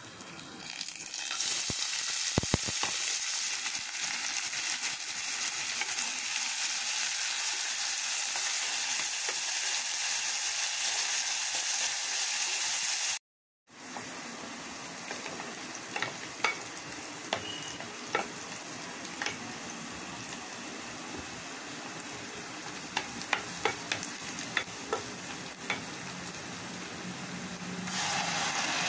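Chopped onions sizzling in hot oil in an aluminium pressure cooker, a loud steady hiss that starts about a second in. After a brief cut the frying is quieter, with scattered clicks of a wooden spatula stirring against the pot. Near the end the sizzle thickens as tomato puree is poured onto the onions.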